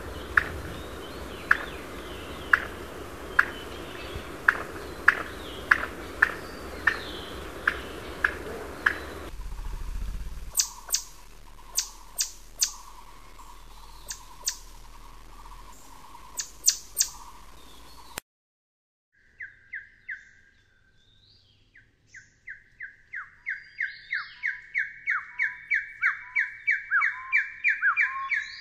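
A run of Taiwanese endemic game-bird calls. First a Mikado pheasant's short high calls, about two a second, over a steady background hiss. Then Swinhoe's pheasant, a scattered string of sharp clicks over a faint steady tone. After a moment's silence comes the Taiwan partridge's song, a long series of whistled notes that grows steadily louder.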